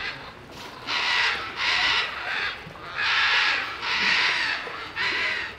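California sea lion barking: a run of about six harsh, rasping barks, each under a second long, the first one faint.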